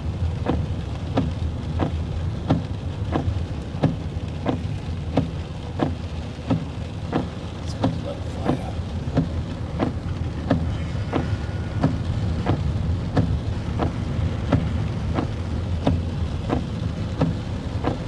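Heavy rain over a steady low rumble, with a sharp tick repeating evenly about one and a half times a second.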